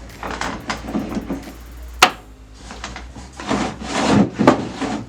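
Wooden parts of a homemade table saw sliding and rubbing against each other, with a sharp click about two seconds in and more sliding and knocking near the end.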